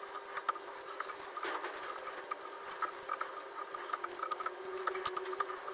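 Small irregular metal clicks and scrapes as a two-pronged special tool turns the threaded, spring-loaded collar out of a Kugelfischer warm-up regulator's housing held in a vise, over a faint steady tone.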